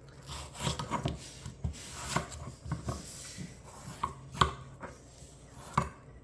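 A kitchen knife cutting the rind off a slice of watermelon: irregular knocks and scraping strokes as the blade cuts through, several sharper knocks among them.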